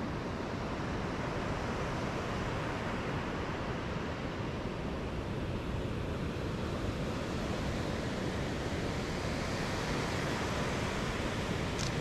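Steady rushing noise of wind buffeting the microphone of a camera moving along an open beach, mixed with surf, with no clear engine tone; it cuts off suddenly at the end.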